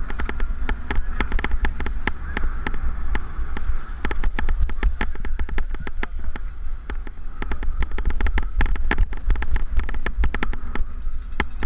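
Mountain bike rattling and clattering as it rides fast over a bumpy dirt track, a dense run of sharp knocks, with wind buffeting the handlebar-mounted camera's microphone as a steady low rumble.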